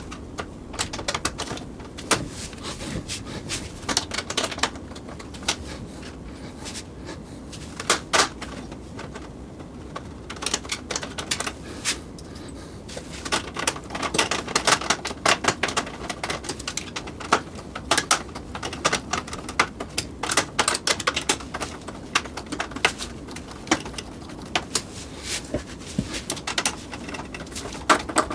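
Irregular clicks, taps and knocks of hands working on a PC case and its fan, plastic and metal parts being handled and fitted, over a steady low hum.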